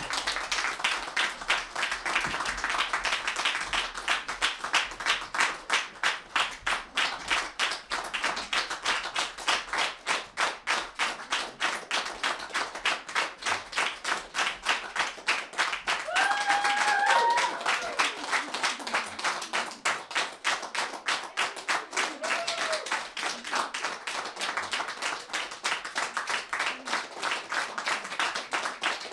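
Theatre audience applauding at the curtain call, the clapping soon falling into a steady rhythmic beat in unison, about three claps a second. A voice calls out briefly about halfway through.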